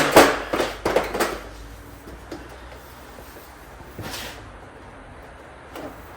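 A quick run of knocks and clatter in the first second or so, then a single faint knock, a short scrape about four seconds in and a few light knocks near the end: things being handled and set down.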